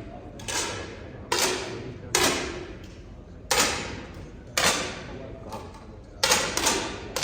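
Air rifle shots from several shooters along the firing line: about eight sharp pops at uneven spacing, each trailing off in a short echo.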